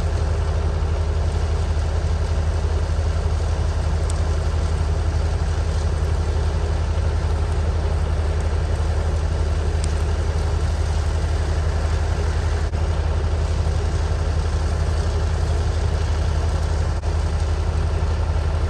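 A large engine running steadily at one constant speed: a deep, even drone with no revving.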